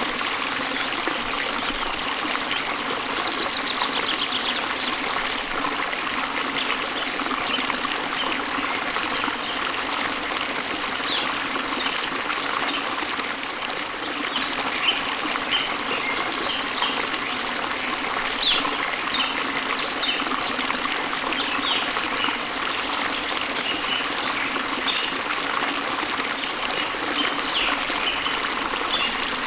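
Steady running water of a waterfall, with short high bird chirps scattered through the second half.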